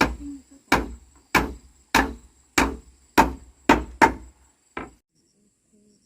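Repeated sharp blows striking wood, about nine of them, roughly one every two-thirds of a second, stopping about five seconds in. Insects chirp faintly and steadily underneath.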